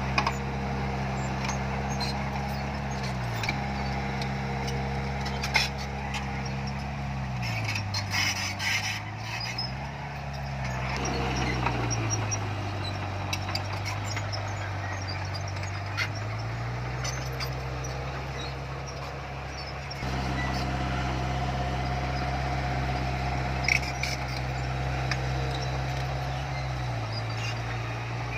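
Heavy diesel earthmoving machine running under load, its engine speed dropping and rising several times, with occasional metallic clanks.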